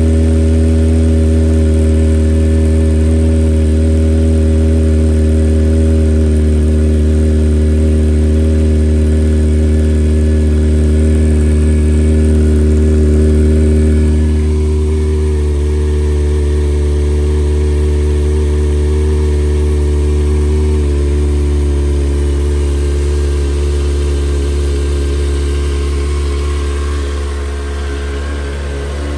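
Kawasaki ZX-25R's 250 cc inline-four idling steadily through a Yoshimura R-77 full exhaust, warming up after a freezing cold start. The idle note eases slightly, getting a little quieter about halfway through and again near the end.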